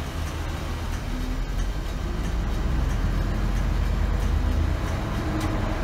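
Engine and road rumble heard inside a city bus under way, deep and steady, rising a little about two seconds in as the bus picks up speed.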